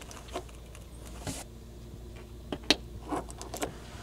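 A few light clicks and a brief rustle of hands working at the rear-window defroster wire connectors, over a steady low hum.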